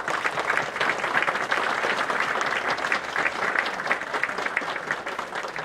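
A group of people applauding, a steady patter of hand claps that thins out near the end.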